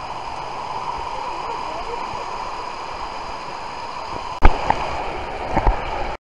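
Steady rush of flowing water, with a loud sudden thump about four seconds in and a couple of smaller thumps after it. The sound cuts off suddenly near the end.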